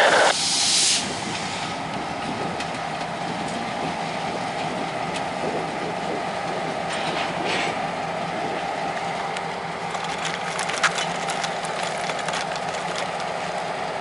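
CN freight train working slowly while switching cars: a loud burst of air hiss in the first second, then a steady rail rumble with scattered clicks and knocks from the cars.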